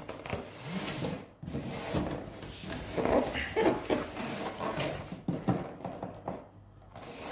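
Cardboard packaging handled by hand: box flaps and an inner cardboard insert rubbed, scraped and shifted, with a few light knocks.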